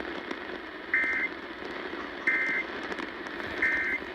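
Three short bursts of the warbling two-tone Emergency Alert System data signal, the end-of-message code that closes a broadcast alert, from a NOAA Weather Radio receiver. They come about 1.3 s apart over steady radio hiss.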